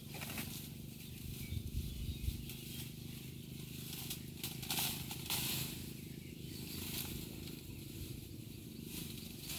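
Intermittent rustling and hissing noise over a low rumble, with a few dull thumps about two seconds in.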